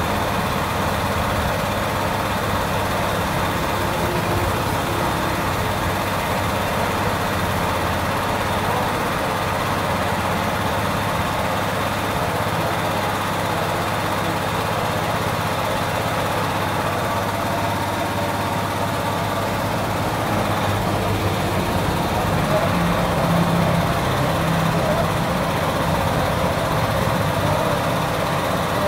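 Small petrol engine of a car-wash pressure pump running steadily at an even speed.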